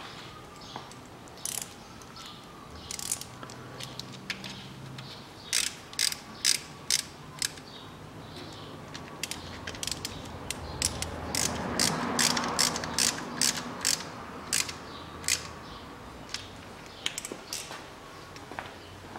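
Ratchet wrench clicking in short irregular runs as an 11 mm socket screws a drain plug back into an automatic transmission pan.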